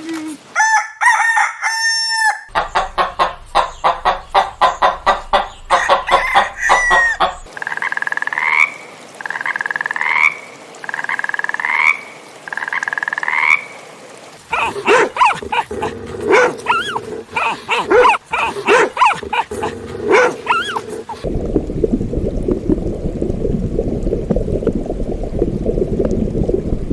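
A series of different animal calls, one clip after another. First come rapid repeated calls, then four separate rising calls, then more rapid calling, and finally a steady noisy sound in the last few seconds.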